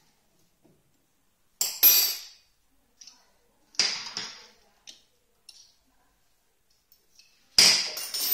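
Metal hand tools clinking against metal, in three sharp groups with a brief high ring: a double clink about two seconds in, another near four seconds, and the loudest near the end.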